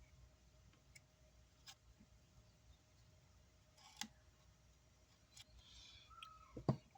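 Near silence with a few faint, scattered clicks and taps of small parts being handled on a workbench, and one louder low knock near the end.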